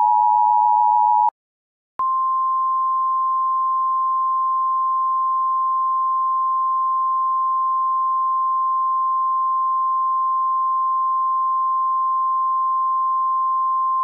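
Emergency Alert System alert tones. The two-tone attention signal cuts off about a second in. After a short gap, a single steady, slightly higher-pitched tone follows and holds: the weather-radio warning alarm tone that comes before a flash flood warning message.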